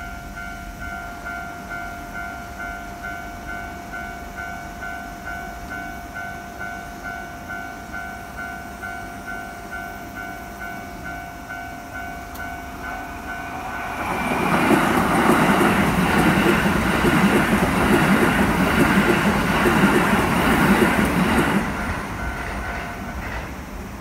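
Level-crossing warning bell on the Keikyu Main Line ringing in even pulses, about two a second. About fourteen seconds in a Keikyu train passes over the crossing for some seven seconds, much louder than the bell, and the bell stops shortly before the end.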